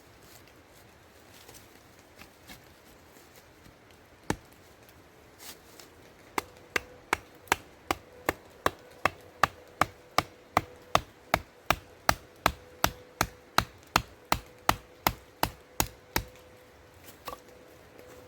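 Wooden fence being knocked together with a tool striking wood. There is a single knock, then after a pause a quick, even run of about two dozen sharp blows at roughly two and a half a second, which stops abruptly.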